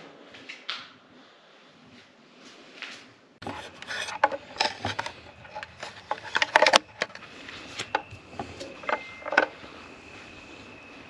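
Objects being handled: scattered light clicks at first, then, after about three seconds, a louder, busier run of clicks, knocks and rubbing over a raised background hiss, with a faint steady high tone in the last few seconds.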